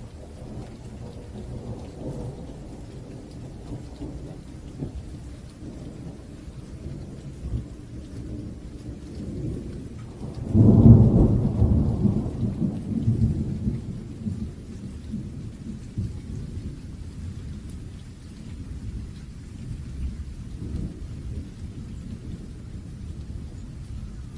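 Thunderstorm: steady rain with low rolling thunder. About halfway through, a loud thunderclap breaks and rumbles away over several seconds.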